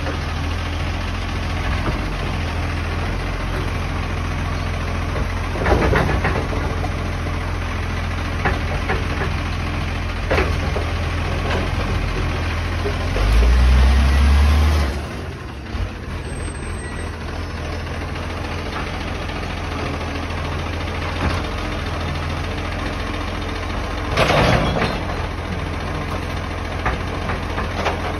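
Side-loading recycling truck's engine idling while its automated arm grabs, lifts and tips a wheelie bin, with a louder low surge from the engine and hydraulics about halfway through. Sharp clunks about six seconds in and again near the end as the bin is gripped and set back down.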